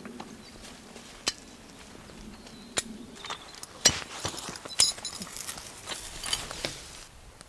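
Hi-Lift jack pumped as a hand winch to drag a log on a steel chain: a few single metallic clicks at first, then from about four seconds in a run of ratchet clicks and chain clinks and rattles until near the end.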